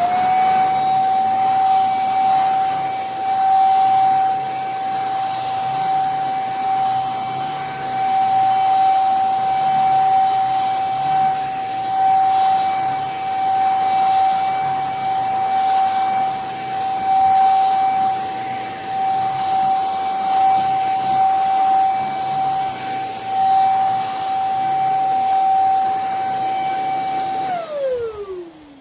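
YUFAC handheld mattress mite vacuum cleaner switched on, its motor quickly spinning up to a steady high-pitched whine with a hiss of air, then switched off near the end, the whine falling in pitch as the motor winds down.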